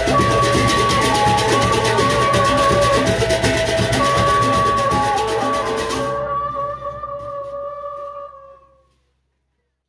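Sasak gendang beleq ensemble from Lombok playing, with large double-headed drums and cymbals beating a rapid, even pulse under several held ringing tones. About six seconds in, the beating stops and the remaining tones ring out and fade to silence.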